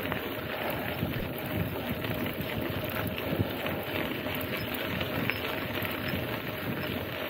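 Steady wind noise on the microphone, with the rolling of a mountain bike being ridden.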